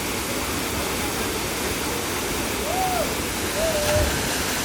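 Steady rushing of a waterfall. Two short faint whistled notes come about three seconds in, and a low thump follows near the end.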